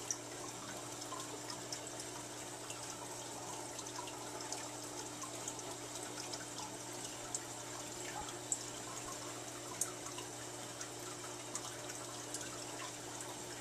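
Water trickling, with a steady low hum underneath and scattered faint drips.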